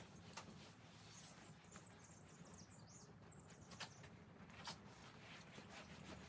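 Faint high squeaks and light ticks of a towel wiping bare windshield glass, the squeak of glass wiped squeaky clean.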